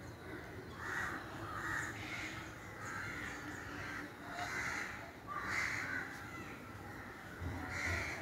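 Blue-and-yellow macaws squawking: a string of short, harsh calls repeating about once a second.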